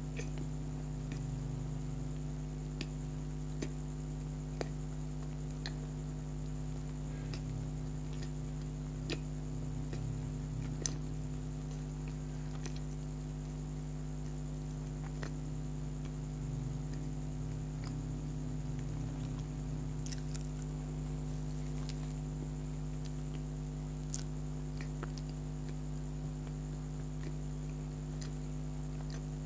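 Soft chewing of donut, with scattered faint wet mouth clicks every second or two, over a steady electrical hum.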